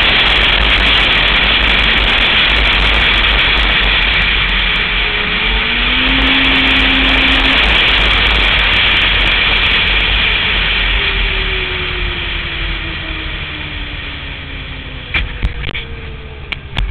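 Snowmobile running at trail speed under a loud rush of noise, its engine note rising briefly and later falling slowly as the throttle is eased off. The sound drops away over the last few seconds as the sled slows, with scattered knocks and rattles near the end.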